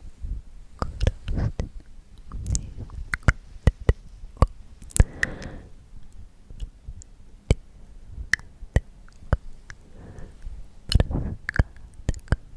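Close-miked ASMR trigger sounds: soft rubbing or stroking strokes close to the microphone, broken by many small sharp clicks.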